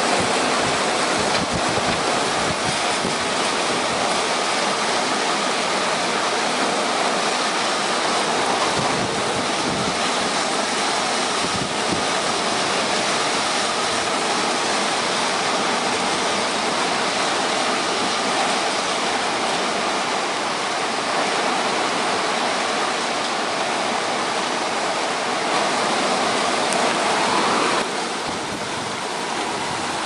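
Torrential downpour with squall wind: a dense, steady rush of heavy rain and gusting wind. It drops in level near the end.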